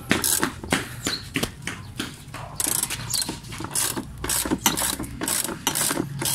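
Half-inch-drive ratchet clicking in quick repeated strokes as it turns the threaded rod of a coil spring compressor, squeezing a car's rear coil spring on its strut.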